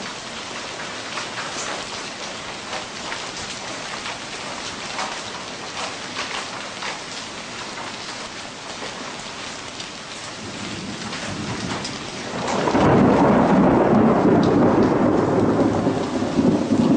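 Steady rain of a thunderstorm pattering, with many small crackling drops. About twelve seconds in, a much louder low rushing rumble comes up and holds.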